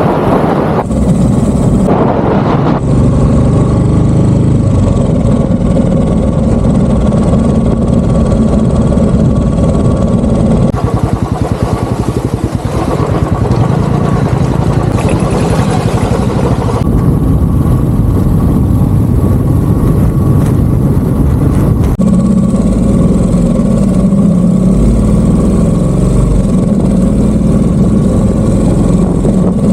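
Royal Enfield Bullet 350's single-cylinder engine running steadily while riding, with wind noise on the microphone. The sound changes abruptly a few times where separate riding clips are joined.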